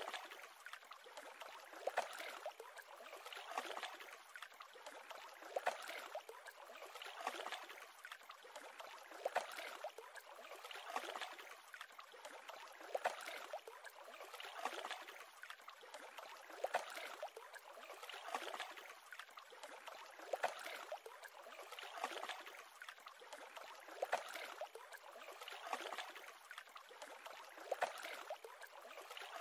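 Small waves lapping and splashing against the side of a boat, with a slap of water about every two seconds.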